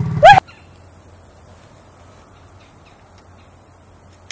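A brief, loud, high-pitched call that rises sharply in pitch in the first half-second, then a few seconds of quiet open-air background.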